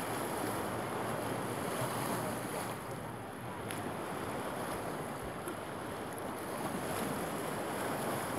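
Steady wash of lake waves, with wind on the microphone.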